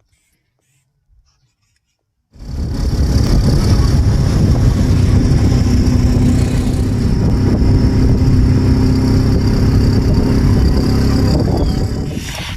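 A motor vehicle's engine runs steadily and loudly, with a deep rumble and a few steady tones over it. It starts abruptly about two seconds in, after near silence, and runs until near the end.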